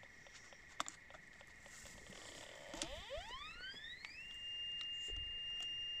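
Metal detector sounding over a buried target: its tone sweeps up in pitch about three seconds in and then holds a steady high beep. A steady high hum runs beneath it.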